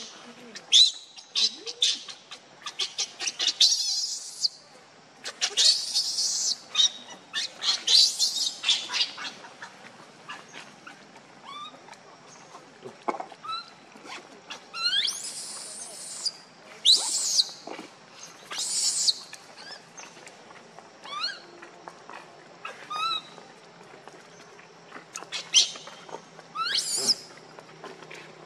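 Baby macaque crying in repeated loud, high-pitched squeals and screeches, in bursts of about a second every few seconds, with quieter short rising squeaks between them: an infant begging to nurse.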